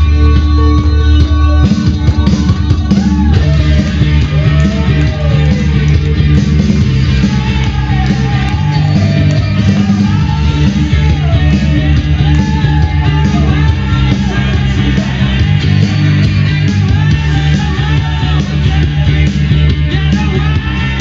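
Loud rock song with a heavy bass line and singing. The backing changes about two seconds in, and the singing comes in about a second later.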